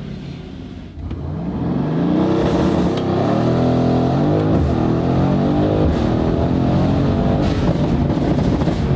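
Mercedes-AMG GLC63S twin-turbo V8 accelerating hard, heard from inside the cabin. From about a second in, the engine note rises sharply in loudness and climbs in pitch, then drops at a gear change about halfway through and keeps pulling.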